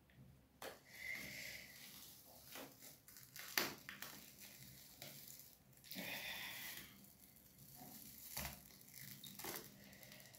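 Faint crackling and sticky tearing of a black peel-off face mask being pulled off the skin, in several short spells with a few sharp clicks.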